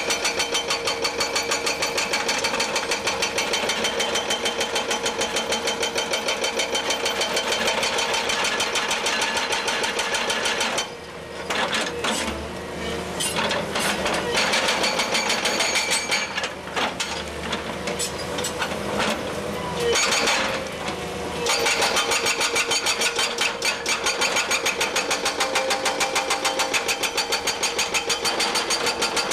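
FINE 20 TOP hydraulic breaker hammering its chisel into rock with rapid, even blows. About eleven seconds in it stops for a moment and strikes unevenly for roughly ten seconds, then settles back into steady hammering.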